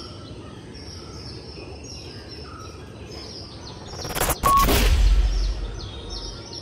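Birdsong of many short, high chirps over a steady background hiss. About four seconds in, a sudden loud whoosh with a deep boom that fades over the next two seconds.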